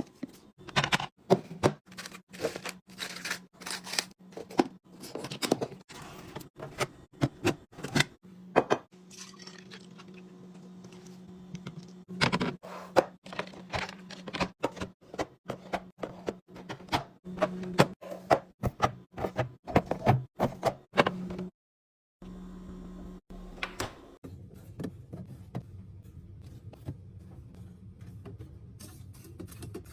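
Irregular run of sharp clicks, taps and knocks of containers, lids and packaging being handled and set down while restocking a fridge, over a steady low hum.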